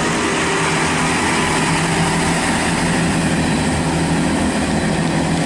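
Diesel multiple unit engines running steadily with rail noise as trains move through the station, including a Class 166 Turbo diesel unit drawing into the platform.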